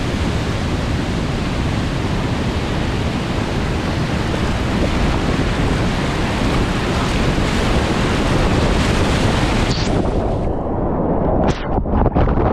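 Rushing whitewater of a river, a loud steady roar of water. About ten seconds in it turns muffled and dull, with a few short splashes near the end.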